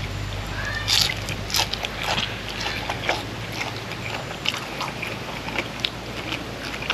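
A person chewing and biting food close to the microphone, with crisp crunches and wet mouth clicks. A low steady hum runs underneath and fades out about four seconds in.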